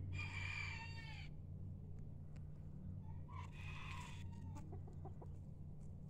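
Golden Buff Cochin rooster crowing twice in short crows, the second ending on a falling note, over a steady low hum.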